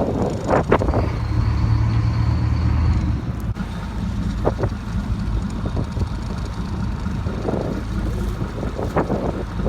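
Fishing boat's engine running with a steady low hum, louder for the first few seconds and then easing, with a few brief sharp sounds over it.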